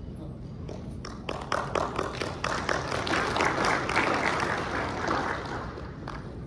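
Audience applauding: the clapping starts about a second in, swells to a peak around the middle and dies away near the end.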